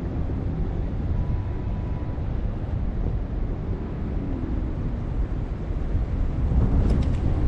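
Wind buffeting the microphone: a steady low rumble, with a few light clicks near the end.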